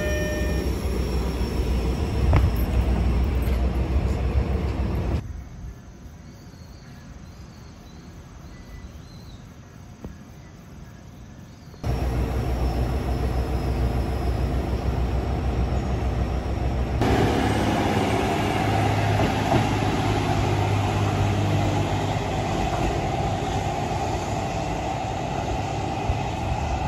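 Diesel railcar at a station platform, its engine running with a steady low rumble. After a quieter stretch of several seconds in the middle, the rumble returns and changes about 17 seconds in as the train pulls away, engine and wheel noise together.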